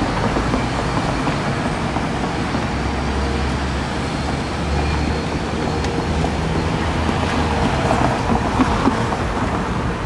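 Steady rumble of vehicles passing at a light-rail grade crossing, with faint steady hums and no clear sudden sounds.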